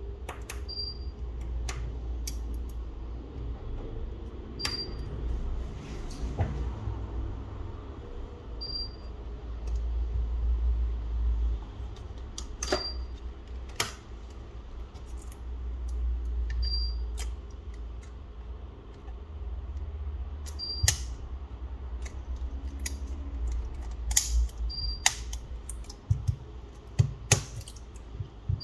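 Small hard clicks and taps of tools and parts being handled during smartphone disassembly, over a steady low rumble, with a short high beep repeating about every four seconds.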